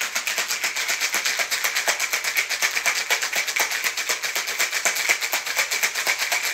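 Ice rattling hard inside a stainless steel cocktail shaker shaken vigorously, in a rapid, even rhythm of strokes. The drink of vodka, pineapple juice and Chambord is being shaken to chill it and froth up the pineapple juice.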